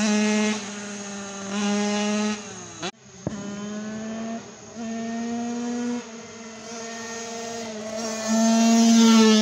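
Kawasaki KX65's 65cc two-stroke single-cylinder dirt bike engine running hard at high revs, its pitch rising and falling with the throttle. It cuts out briefly about three seconds in and grows louder near the end as the bike comes toward the listener.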